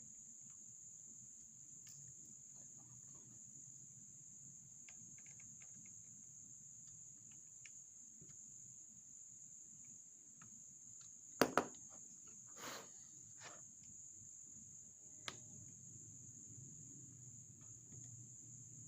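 Sharp clicks and light taps of small tools and parts while a laptop's underside is being taken apart: a quick double click about eleven and a half seconds in, and lighter taps a second and four seconds later. A steady, faint high-pitched drone runs underneath throughout.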